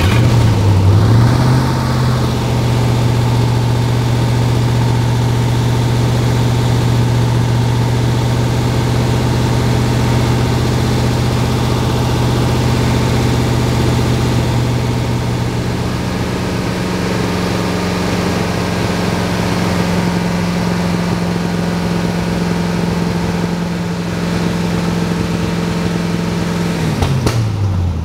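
1992 Chevrolet Corvette V8 revved up from idle and held at a raised, steady engine speed, about 2,400 rpm. About halfway through it is raised a little further and held, then let fall back toward idle near the end. The engine runs with substantial exhaust leaks near the exhaust manifolds.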